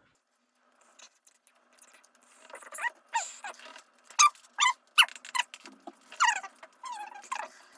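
A run of short, high-pitched squeaks and whines, some sliding down in pitch, beginning about two seconds in.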